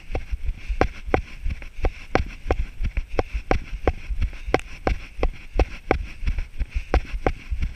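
A runner's footfalls on grass, about three strides a second, each landing a sharp tap, over a low rumble of wind on the microphone.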